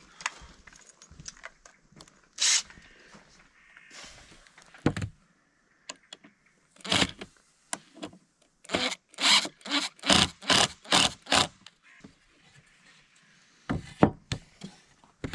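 Woodworking assembly noise on a pine plank frame: short, sharp knocks and rasps, one at a time at first, then a quick run of about two a second through the middle, and a few more clatters near the end.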